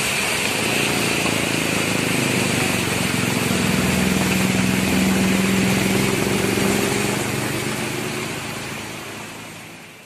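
Traffic passing on a wet road: tyres hissing through water on the asphalt, and a vehicle engine droning past, loudest in the middle. The whole sound fades away near the end.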